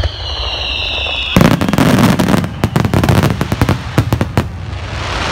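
Aerial fireworks: a whistle falling slightly in pitch, then a loud burst about a second and a half in, followed by a quick string of sharp crackling pops for about three seconds before it fades.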